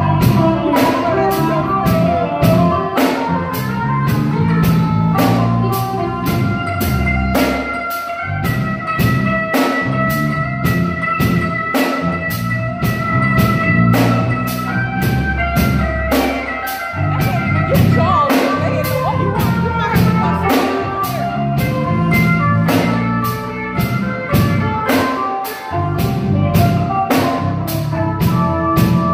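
Live rock band playing an instrumental passage: electric guitars over a steady drum-kit beat, with long held guitar notes through the middle.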